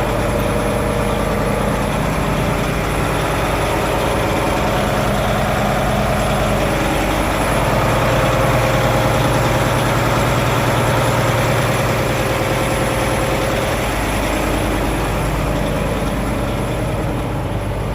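Heavy diesel truck engine idling steadily. It runs a little louder and deeper for several seconds in the middle.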